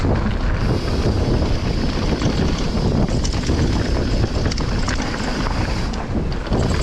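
Wind buffeting the microphone as a downhill mountain bike rides fast over a loose gravel trail, with tyres on stones giving a steady run of small clicks.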